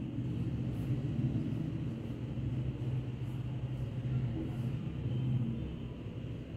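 Steady low background rumble, with faint short scratches of a marker writing on a whiteboard.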